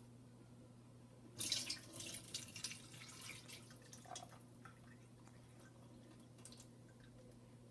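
Liquid from a can of beans being poured off into a stainless steel sink: a splashing pour of about two seconds starting over a second in, trailing off into a few drips.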